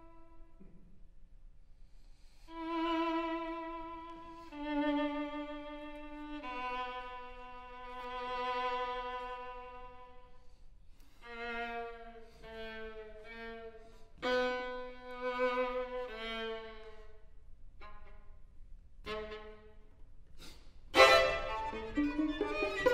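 Two violins playing slow, held notes with vibrato, then short broken phrases with pauses between them. About two seconds from the end they come in with a loud, sudden attack.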